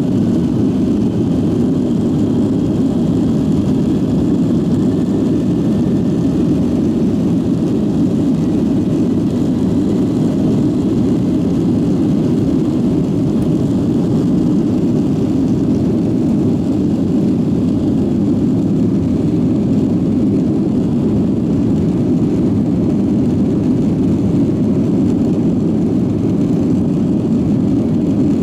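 Boeing 757-300 airliner's jet engines and airflow heard from inside the passenger cabin: a steady, loud, low rumble that holds even throughout, with a faint high whine rising slightly in the first few seconds.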